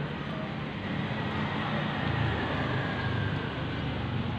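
Suzuki Satria FU 150's single-cylinder four-stroke engine running steadily on its stand, freshly rebuilt and running smoothly.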